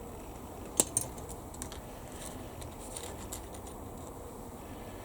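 Two sharp clicks about a second in, followed by a scatter of light ticks: small plastic model-kit parts and hobby tools being handled and set down.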